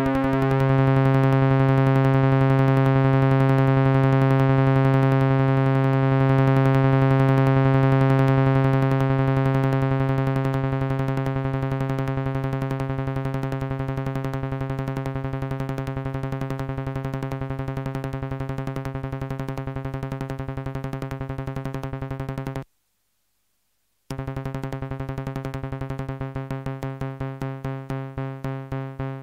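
MFOS Sound Lab Mini-Synth droning on one steady buzzy note rich in harmonics, its VCA being modulated by the LFO. The note cuts out for about a second and a half about two-thirds of the way in, then comes back with a pulsing tremolo that grows deeper and slower near the end.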